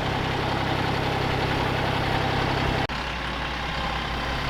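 John Deere tractor engine running steadily. About three seconds in the sound changes abruptly to a deeper, slightly quieter engine note.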